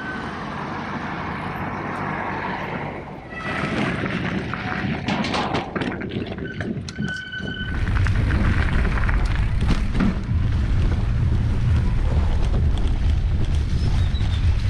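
Wind buffeting the microphone: a heavy, steady low rumble that sets in about halfway through, after a stretch of rattling clicks and noise.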